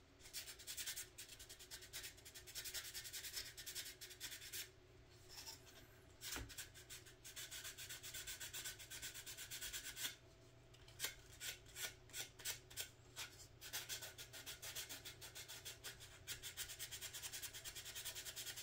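Wet sandpaper rubbed in quick, short back-and-forth strokes over the plastic body of a 1/25-scale model car, sanding down a sink mark. The strokes stop briefly about five seconds in and again about ten seconds in.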